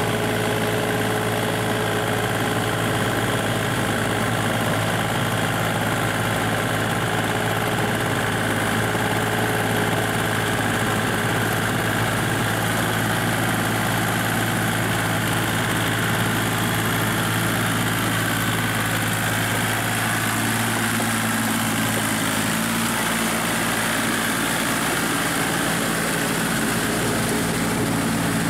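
Kubota compact tractor's diesel engine running steadily as the tractor drives through a flooded rice paddy. About twenty seconds in, its note shifts slightly higher.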